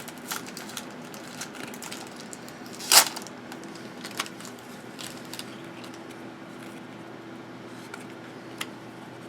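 Trading cards and their foil pack wrappers being handled: light rustling and clicks, with one short, louder burst of wrapper noise about three seconds in. A faint steady hum runs underneath.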